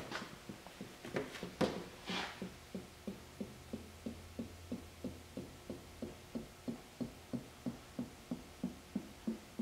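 Motor oil glugging out of an upturned bottle into the oil filler of a Polaris Sportsman 500, a steady rhythm of about three glugs a second as air gulps back into the bottle. A few sharp knocks of the bottle being handled come in the first couple of seconds.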